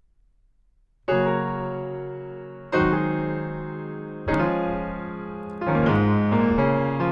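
Grand piano playing a slow introduction, starting about a second in: three full chords about a second and a half apart, each left to ring and fade, then quicker moving notes near the end.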